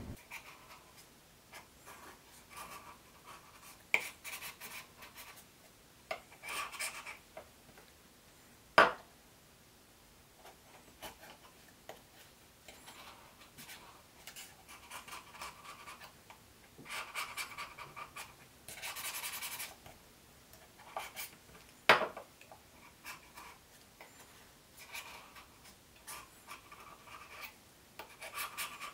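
X-Acto knife slicing along the sides of gouged bassoon cane clamped in a shaper, a series of short, soft scratching cuts. A few sharp clicks stand out among them, the loudest two about nine and twenty-two seconds in.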